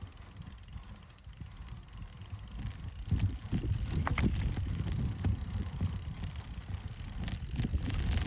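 Mountain bike rolling over a rough trail: an uneven low rumble of tyres and frame on the ground, with rattles and clicks, growing louder about three seconds in. A brief squeak comes about four seconds in.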